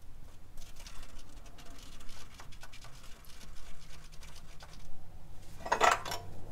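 Handling noise: work-gloved hands rubbing, tapping and scraping against a steel cross member while a paint marker marks hole positions, a string of small irregular scratches and taps over a faint steady hum. A louder brushing scrape comes near the end.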